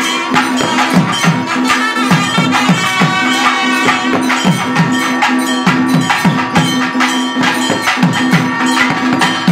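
Live traditional band music: wind instruments play a melody over a steady held drone, while a stick-beaten drum sounds repeated strokes that each drop in pitch, with many sharp percussive clicks.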